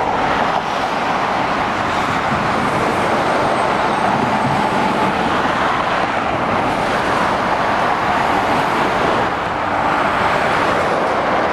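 Steady motorway traffic noise: the tyres and engines of lorries, a coach and cars running in a continuous even roar, with no single vehicle standing out.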